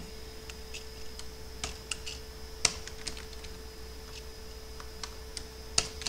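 Computer keyboard being typed on, with irregular, scattered keystrokes and short pauses between them, two of them louder. A faint steady electrical hum runs underneath.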